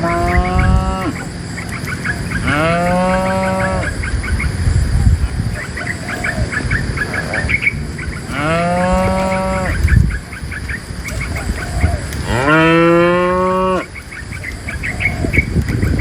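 Cattle mooing: four long moos, each about one and a half seconds, rising in pitch at the start and then held. A steady scatter of faint high chirps runs between them.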